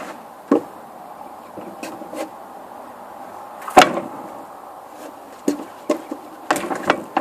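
Irregular sharp knocks and thumps, about eight in all, the loudest about four seconds in and a quick cluster near the end.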